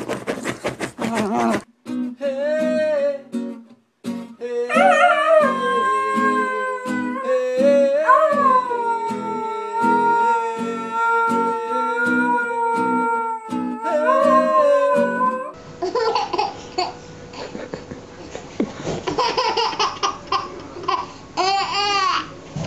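Dog howling along to an acoustic guitar being picked: long drawn-out howls that slide up and down in pitch over the regular guitar notes. Near the end, a baby babbling and laughing.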